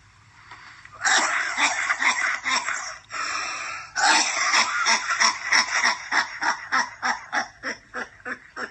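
A man in a hard coughing fit: a dense burst of coughing about a second in, a wheezing breath, then a long run of short hacking coughs, about four a second, slowly weakening.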